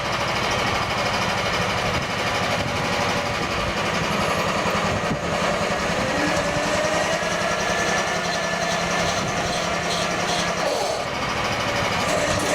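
Small engine running steadily, with a rapid, even low-pitched pulsing.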